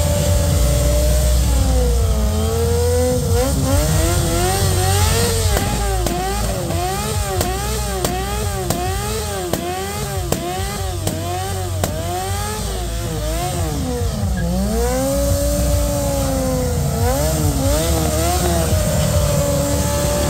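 Motorcycle engine being revved over and over, its pitch rising and falling in quick throttle blips about one and a half times a second through the middle, with slower, longer revs before and after.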